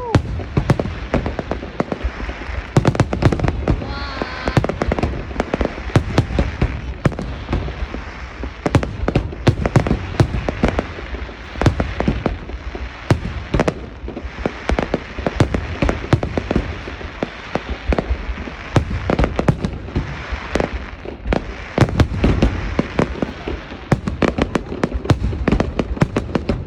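Aerial fireworks shells bursting high overhead in a dense, continuous barrage, several loud bangs a second with no let-up.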